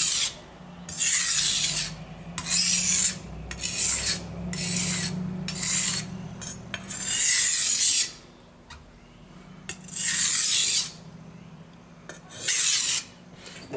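Steel knife blade scraping across the wet 1000-grit side of a whetstone in about ten rasping strokes of uneven length, worked in a slurry. There is a pause of about two seconds past the middle.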